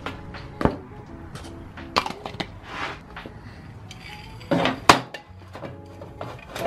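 Metal aerosol spray-paint can knocking and clinking against a metal shelf and the other cans as it is put away, with the loudest knocks about five seconds in. Background music plays underneath.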